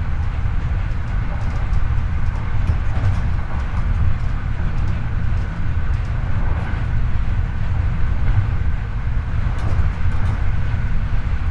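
Running noise inside a Hankyu 8300 series electric train, heard from the floor above a bogie: a steady rumble of wheels on rail with a few faint clicks.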